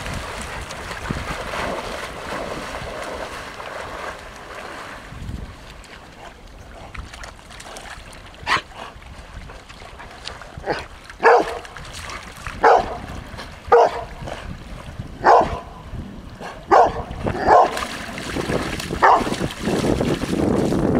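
A dog barking repeatedly: about nine short, sharp barks roughly a second apart, starting about eight seconds in and stopping shortly before the end.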